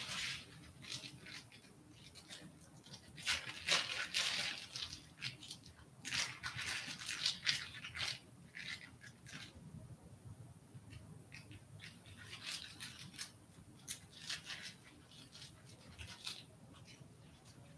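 Intermittent rustling and scratching in irregular clusters of quick strokes, loudest about four and seven seconds in.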